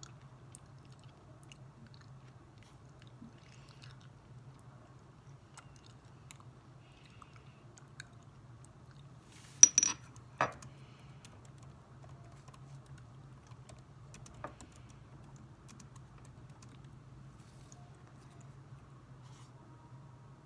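Faint steady low hum with sparse light clicks, broken about ten seconds in by a brief, loud clatter of three or four sharp knocks, and a single lighter knock a few seconds later.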